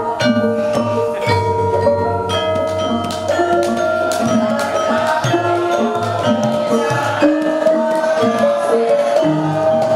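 Javanese gamelan ensemble playing: bonang kettle gongs and metallophones struck with mallets in a steady run of ringing notes over a low sustained tone.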